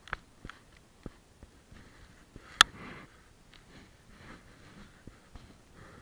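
Handling noise from a body-worn camera: jacket fabric rustling against it, with a few light knocks and one sharp click about two and a half seconds in.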